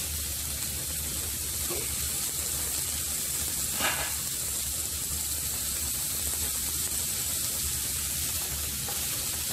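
Cauliflower florets sizzling in hot oil in a pan as they are stirred with a wooden spatula, a steady hiss. One brief knock comes about four seconds in.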